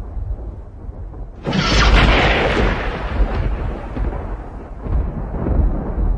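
Thunder: a sharp clap about a second and a half in that rolls and fades over several seconds, over a continuous deep rumble.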